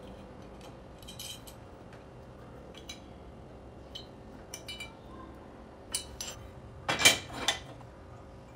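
Light metallic clinks and taps as a steel angle-iron jaw plate with bolts is fitted to and handled on a homemade steel vise, with a louder clatter of steel striking steel about seven seconds in.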